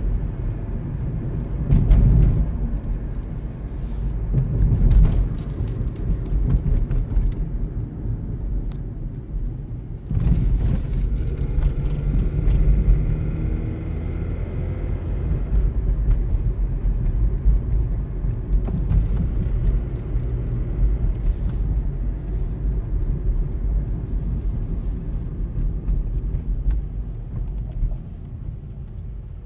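2012 Nissan Versa driving, with a low, steady running noise from the car. A pitched note rises for a few seconds about a third of the way in. This is the noise the owner hears only under acceleration, which stops as soon as the gas pedal is released; its cause is unknown.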